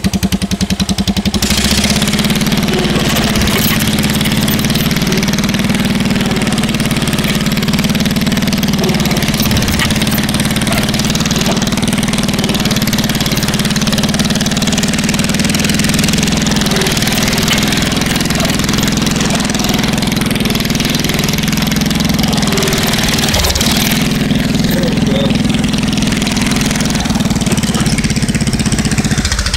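Riding lawn mower engine running loud and steady. It opens up about a second and a half in, runs hard, and eases back a little near the end.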